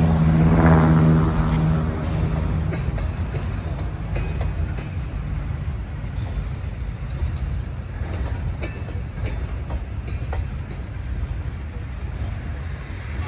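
Freight train of tank cars rolling past: a steady low rumble of steel wheels on rail, with a few sharp clicks. A low, steady pitched hum fades out about two seconds in.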